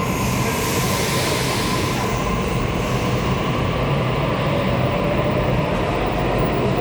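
Sydney Trains electric suburban train running: a steady rumble with a faint steady whine, and a louder hiss in the first few seconds.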